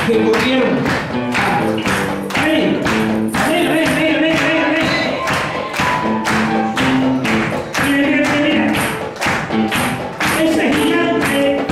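Upbeat church worship music with a steady, fast percussion beat under held melody notes.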